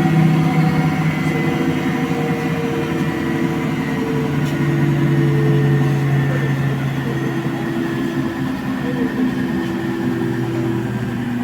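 Electrolux CompassPRO WH6-27 commercial washer spinning a duvet in its drum, a steady motor whine made of several held tones that shift a little in pitch, with a high tone falling slowly.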